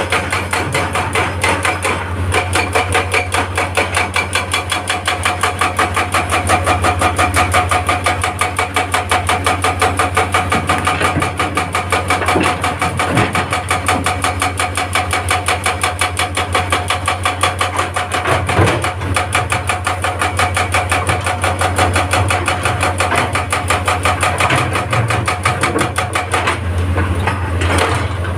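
Hitachi excavator's hydraulic breaker hammering rock in rapid, even blows over the steady run of the excavator's diesel engine. Near the end the hammering stops and the engine keeps running.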